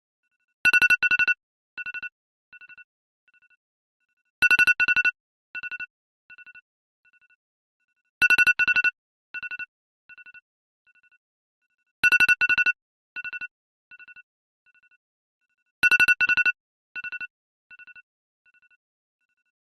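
iPhone-style ringtone: two loud high beeps followed by a string of ever-fainter repeats, like an echo. The pattern repeats about every four seconds, five times over.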